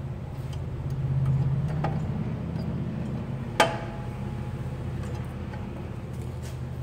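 Landini tractor's diesel engine idling steadily, briefly louder about a second in. A single sharp metallic clank about three and a half seconds in.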